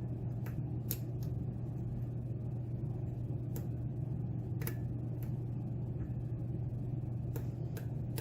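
A hook pick working the pins of an American Lock Series 2000 padlock: about eight sharp clicks, irregularly spaced, as pins set or catch on serrations, over a steady low hum.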